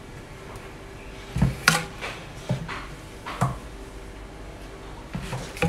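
Seasoned meat and leaves being pushed by hand into a fresh green bamboo tube: several irregular dull knocks and rustles as the filling is packed down inside the bamboo.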